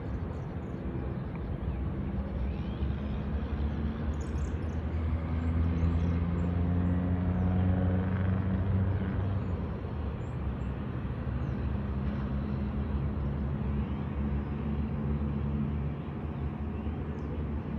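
Low engine drone of a motor vehicle, growing louder toward the middle and then easing off.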